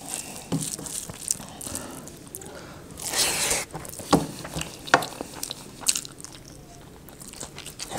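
A person eating rice and mutton curry by hand: fingers mixing the food on a steel plate, then chewing, with small wet clicks and smacks. A brief breathy hiss comes about three seconds in.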